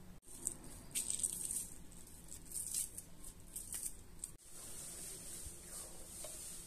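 Kitchen handling sounds: short, light rattling and scraping taps as shrimp, chopped parsley and minced garlic go into a bowl, then a steady faint hiss after a cut about four seconds in.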